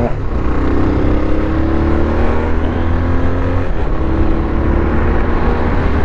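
Motorcycle engine running at a steady pitch while riding. The engine note breaks briefly a little past halfway, then carries on.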